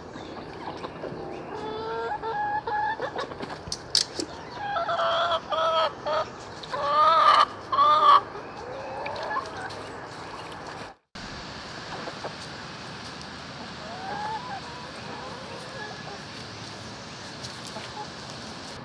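Chickens clucking and calling: a few faint calls, then a run of loud, short, pitched calls from about five to eight seconds in, over a steady outdoor background.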